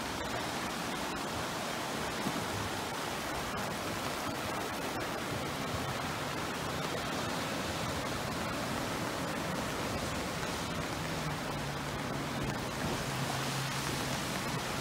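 River in flood rushing steadily, fast-running floodwater making a dense even noise. A faint low steady hum joins about two-thirds of the way through.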